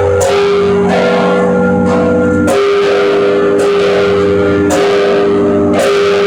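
Several large church bells of St John's Co-Cathedral ringing together, with fresh strokes every second or two over the long, overlapping hum of the bells.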